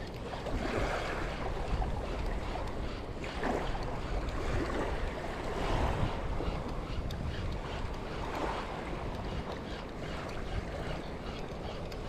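Small waves washing onto a sandy shore, swelling and fading every few seconds, with wind rumbling on the microphone.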